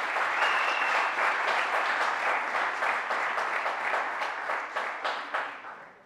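Audience applauding: a dense, steady patter of many hands clapping that dies away near the end.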